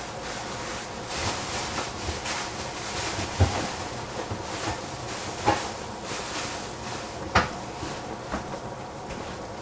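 Steady sizzle and hiss of onion and courgette cooking in a lidded stainless-steel pan, with a few sharp knocks and clatters, the loudest about three and a half and seven and a half seconds in.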